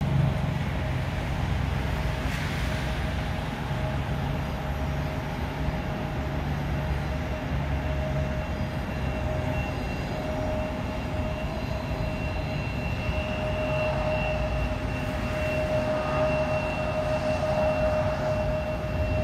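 Cessna 208B Grand Caravan's PT6A turboprop engine at takeoff power during the takeoff roll, heard at a distance: a steady whine over a low rumble. The whine grows louder in the last few seconds.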